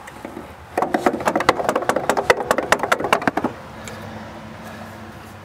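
Rapid light tapping with a tool on the Volkswagen Super Beetle's starter, about ten sharp metal taps a second for nearly three seconds. This is an attempt to free a starter that will not crank the engine.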